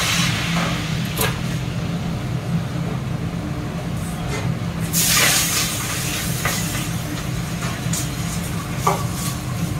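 Duck pieces deep-frying in a wok of hot oil over a high-flame gas burner: steady burner roar under bubbling sizzle, with a louder surge of sizzling about five seconds in. A few short metal clinks of the ladle and wire strainer against the wok.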